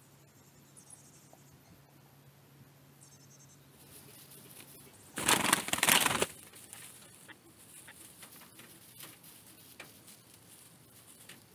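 Chukar partridges in a straw-bedded pen: a loud flurry of rustling lasting about a second near the middle, then faint scattered rustles and taps in the straw.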